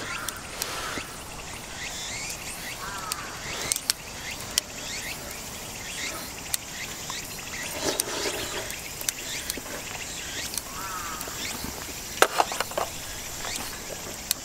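Outdoor ambience with a steady background hiss, a few short chirping bird-like calls, and several sharp clicks, the loudest about three-quarters of the way through.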